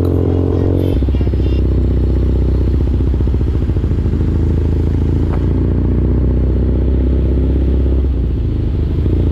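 BMW R nineT's 1170 cc boxer twin running steadily under way, heard from the rider's seat. The engine note changes about a second in and eases off a little near the end.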